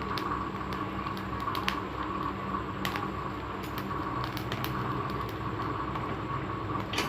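Gas burner flame hissing steadily under a tomato and green chillies roasting on a wire mesh, with scattered sharp crackles and pops, one of the loudest near the end.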